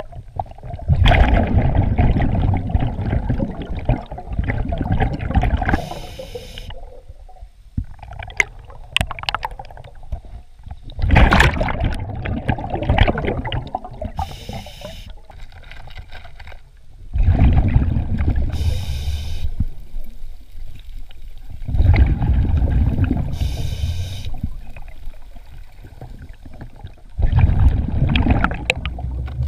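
Scuba diver breathing through a regulator underwater. About five exhalations send out rumbling, gurgling bubbles lasting a few seconds each, with a short hiss from each inhalation in between.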